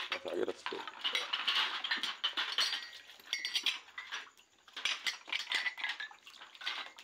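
Glass cups and dishes clinking and clattering again and again as they are washed by hand in basins and set down.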